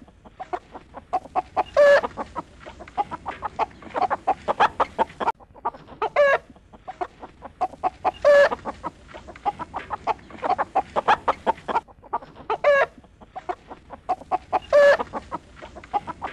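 Chickens clucking steadily, with a louder drawn-out call about every two seconds.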